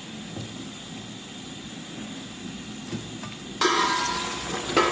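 Cooking pot hissing with steam, quiet at first, then a sudden loud rush of hiss about three and a half seconds in that fades away.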